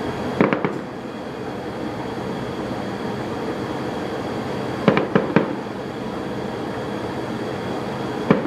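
Fireworks shells bursting in quick clusters of sharp bangs: a few about half a second in, three more about five seconds in, and another group near the end, over a steady background noise.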